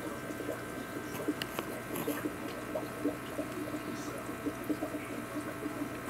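Water bubbling and trickling in a running aquarium, a steady patter of small bubbly blips over a constant hum.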